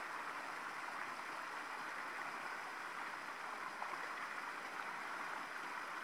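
A steady, even rushing hiss like running water, unchanging throughout, with no distinct handling sounds in it.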